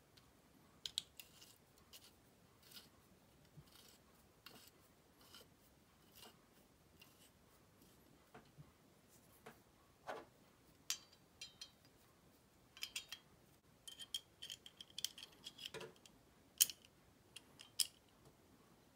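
Steel parts of an old hand-operated hair clipper clicking and scraping against each other as it is put back together by hand: scattered light metallic clicks, growing into a quick run of clicks in the last few seconds.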